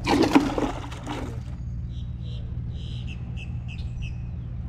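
A short burst of rustling with one sharp knock in the first second and a half, then several short high chirps over a steady low rumble.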